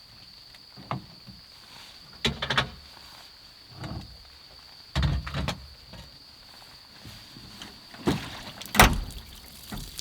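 Irregular knocks and clunks of things being handled and set down, in small clusters every second or two, the loudest near the end. A steady high thin tone runs underneath.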